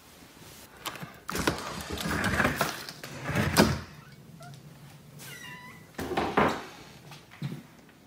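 Australian shepherd whining at the front door, mixed with the clicks and thunks of the door's lock and knob being worked and the door pulled open.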